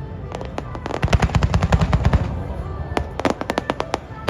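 Fireworks crackling: rapid runs of sharp pops over a low rumble, one run about a second in and another around three seconds in.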